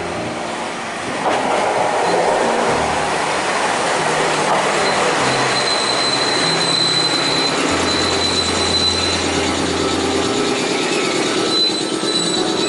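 Tama Densha electric train pulling in alongside a station platform: wheel and rail noise rises about a second in, and a thin high wheel squeal runs through the middle as the train slows.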